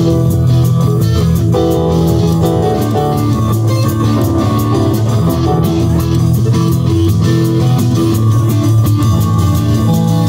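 Live rock band playing: two electric guitars over a drum kit, with a cymbal tapping out a steady beat.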